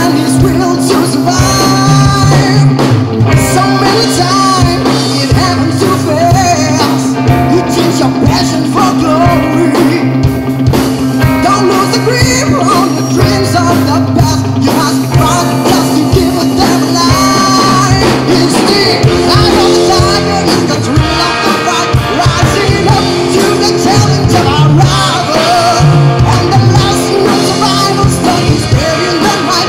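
Live rock band playing loud: a male lead singer over distorted electric guitars, bass guitar and a drum kit.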